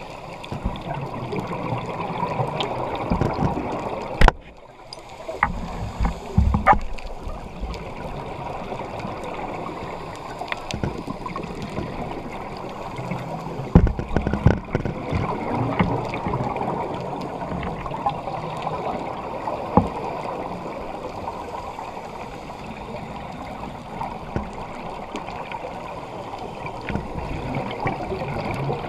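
Underwater sound through a camera housing: scuba breathing, with gurgling exhaled bubbles that swell and ebb, and a few sharp clicks.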